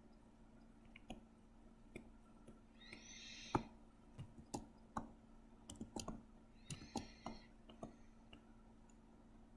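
Quiet, scattered sharp clicks of a computer mouse used for drawing, irregularly spaced. Two short soft hisses come about three and seven seconds in, over a faint steady hum.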